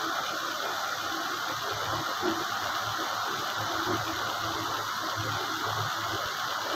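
A woman crying quietly, with faint soft whimpers over a steady hiss.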